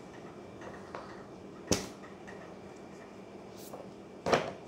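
Paperback books and the cardboard box being handled: two sharp knocks about two and a half seconds apart, with a lighter tap and faint paper ticks between.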